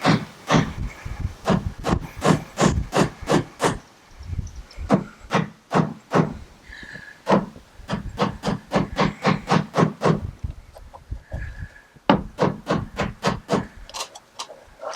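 A duct-tape-wrapped sledgehammer tapping a plastic end cap onto the end of a tubular steel step rail. The blows come in quick runs of about two to three a second, light rather than hard, with two short pauses.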